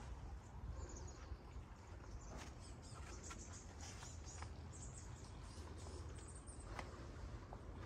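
Faint, scattered high bird chirps over a steady low outdoor rumble.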